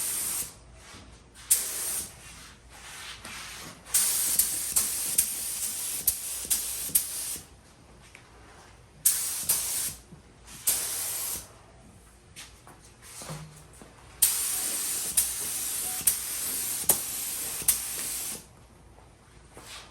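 Compressed-air paint spray gun hissing in repeated trigger pulls. There are about six blasts of different lengths, the longest three to four seconds each, with quiet gaps between them.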